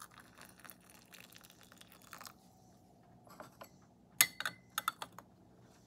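Teaware clinking: a cluster of sharp clinks about four seconds in, the first ringing briefly, as the pot and cups are handled to brew another infusion. A faint hiss comes before it.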